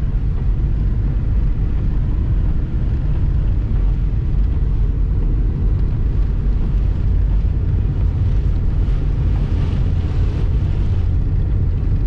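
Inside a car's cabin: a steady low rumble of engine and tyres on a wet road, with a brief swell of hiss about three-quarters of the way through.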